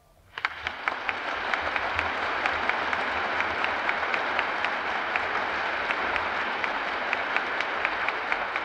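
Concert-hall audience applauding after a solo piano piece ends, breaking out about half a second in and holding steady as many overlapping claps.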